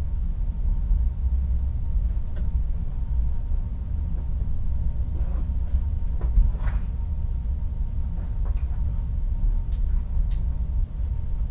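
Steady low rumble of a ship under way, heard inside a cabin at the porthole, with the sea washing past the hull. A few faint clicks and creaks come and go, the last two close together near the end.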